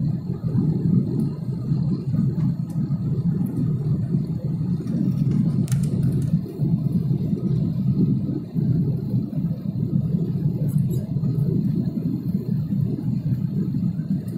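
Steady low rumble of an Airbus A320's engines and rushing air, heard inside the passenger cabin during the climb after takeoff.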